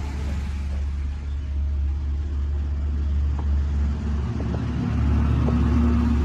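A dump truck's engine running with a steady low rumble that grows a little louder toward the end.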